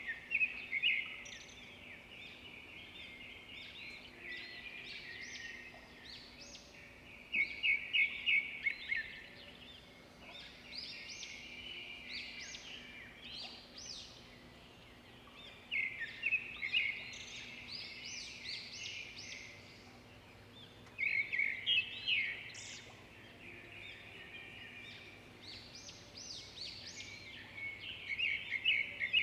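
A bird singing: short bunches of quick, high chirping notes about every six to eight seconds, with softer chirps between, over a faint steady hum.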